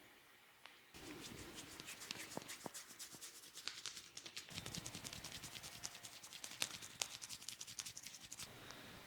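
Hands working through hair and over the scalp in a head massage: a fast run of crackling, scratching clicks, starting about a second in and stopping near the end.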